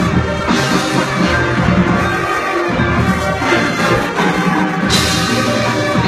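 Marching band playing its field show: ensemble music with drums and front-ensemble percussion prominent, and a bright crash about five seconds in.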